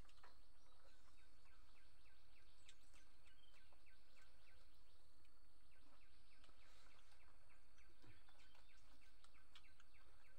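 Quiet rural outdoor ambience: a steady low background noise with faint, quickly repeated high chirps from wildlife, about three or four a second.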